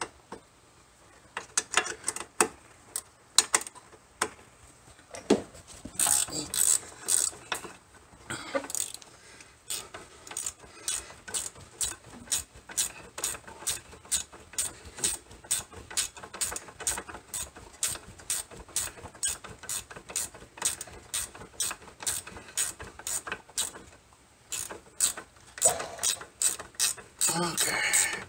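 Ratcheting gear wrench clicking as a nut is backed off a bolt, in a long even run of about three clicks a second with quicker bursts of clicking in between.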